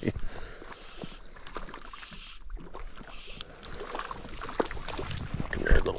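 Small hooked rainbow trout splashing at the water's surface as it is played in on a fly line.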